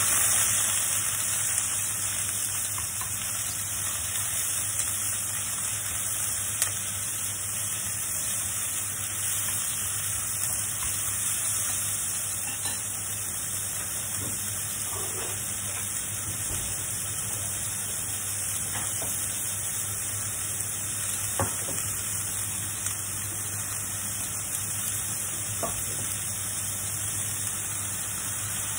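Sliced onions and pork sizzling in oil in a stainless-steel pan, a steady frying hiss, with a few sharp clicks as they are stirred.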